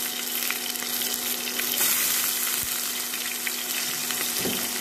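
Sliced onion, dried red chillies and whole garlic bulbs sizzling steadily in hot mustard oil in a nonstick wok, with scattered crackles and spits. This is the tempering (phoran) stage of the frying.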